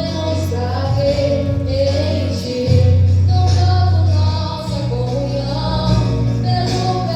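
Two female voices singing a Christian praise song over instrumental accompaniment with long held bass notes and light percussion.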